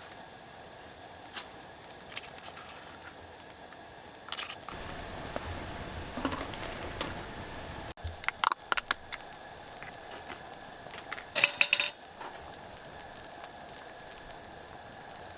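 Scattered clicks and knocks of things being handled over a steady faint hiss, with a louder low rumble from about four and a half to eight seconds in and a quick cluster of sharp clicks about eleven seconds in.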